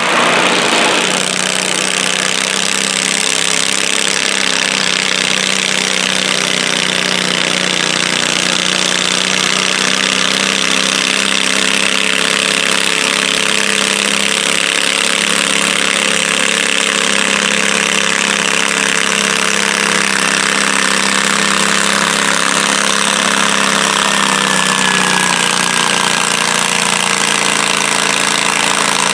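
Stock John Deere garden tractor engine running steadily at an even pitch while it pulls the weight-transfer sled.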